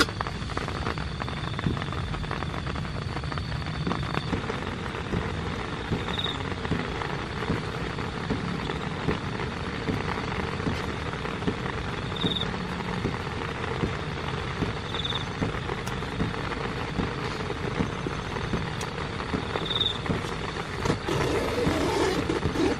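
Heavy rain falling steadily, a dense patter of drops on a surface. A faint high chirp recurs every few seconds.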